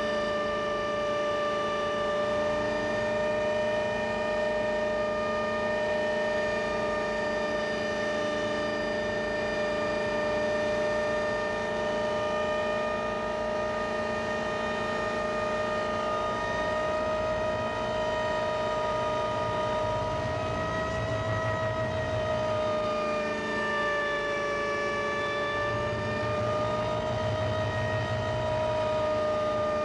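A Hummingbird kit helicopter with a V8 engine, heard from inside the cockpit in flight. A steady high whine runs over the engine's drone, its pitch wavering slightly, and a deeper rumble swells twice in the later part.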